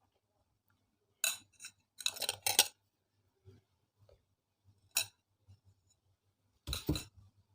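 Spoon and dishes clinking as food is served onto a plate: a handful of short clinks and knocks, a quick cluster in the first few seconds, one more in the middle and a louder pair near the end.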